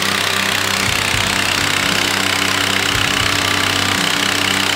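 Loud background rock music with heavy, distorted guitar.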